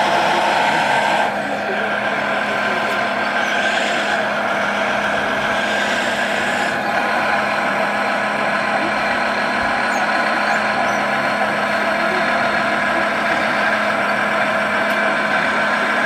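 Radio-controlled model construction machines running, a steady engine-like drone with motor whine and hiss, at an even level throughout.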